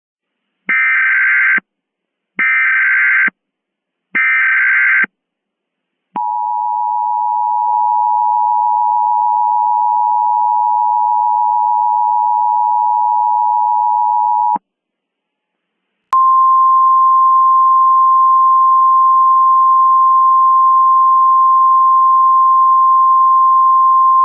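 Emergency Alert System tones. Three short buzzy bursts of SAME header data come first, then the two-tone EAS attention signal for about eight seconds. After a short gap, a single steady alert tone begins and continues.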